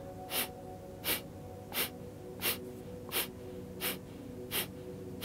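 Kapalabhati breathing: short, forceful exhalations through the nose, pumped from the belly, seven of them in an even rhythm of about three every two seconds.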